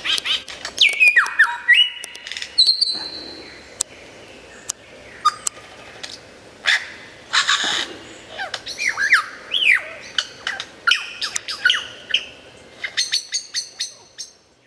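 Lyrebird singing a loud, varied run of falling whistled notes, steady tones and sharp clicks, ending in a quick string of clicks.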